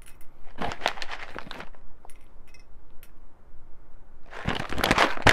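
Clicks and knocks of small objects being handled on a counter, then a dense crackling rattle from about four seconds in.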